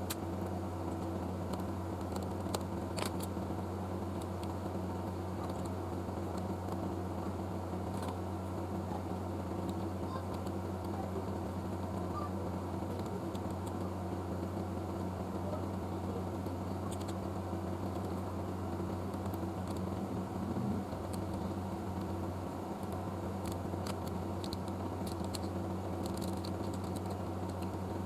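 A steady low electrical hum with a few faint, scattered light clicks and taps.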